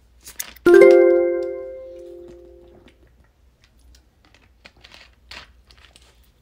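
Copart VB3 auction app chime: a single bell-like electronic tone that sounds as a new bid registers and rings out over about two seconds. A few faint clicks follow.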